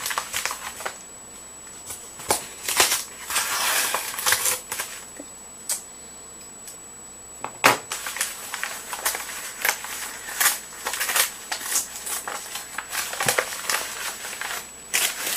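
Mailed package being opened by hand: a stretch of tearing and crinkling packaging about three seconds in, then a run of sharp clicks and rustles as the wrapping is handled.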